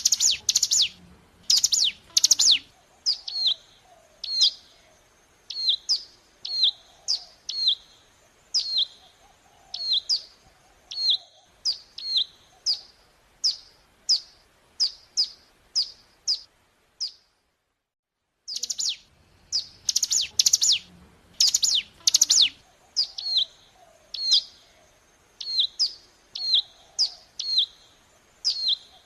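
Ciblek gunung, a prinia, calling: a long series of sharp, quick, falling chirps, one or two a second. There are louder clusters of rapid notes at the start and again just after the sound drops out completely for about a second and a half midway.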